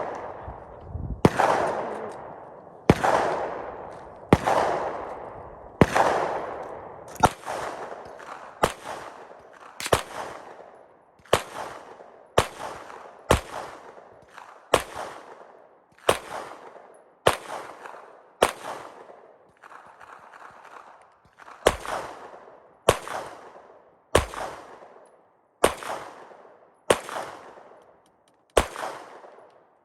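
Rifle fired in steady single shots, about twenty of them, a little over a second apart, each crack trailing off in a ringing echo.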